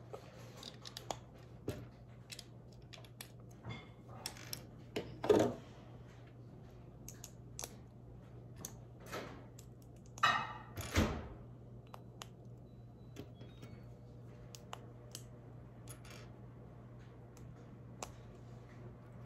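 Plastic Lego bricks clicking and rattling as they are handled and pressed together, with a few louder rattling bursts about five and ten seconds in, over a faint steady hum.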